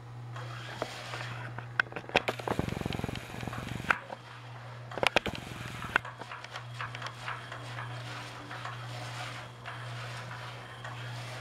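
Battery-powered cat toy's motor running under its fabric cover with a steady low hum. There are two stretches of rapid rattling and clicking, one about two and a half seconds in and one about five seconds in.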